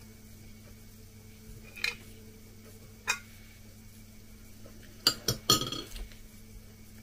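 A metal spoon clinking against dishes during a meal: a single clink about two seconds in and another about three seconds in, then a quick cluster of clinks and knocks near the end.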